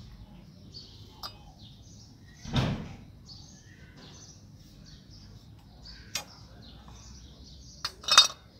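Birds chirping in the background while loose metal suspension parts are handled: a dull knock about two and a half seconds in, a few light clicks, and a loud ringing metal clink near the end as the coil spring's steel seat cup is picked up.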